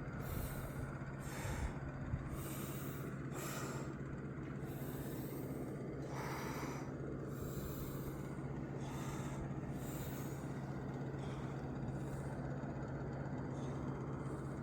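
A steady low hum, with a person's breathing close to the microphone as soft puffs every second or so.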